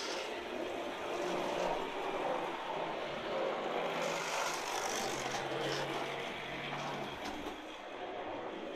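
Hornby OO gauge model locomotive running steadily around the track, its small electric motor whirring and its wheels rolling on the rails with a faint low hum.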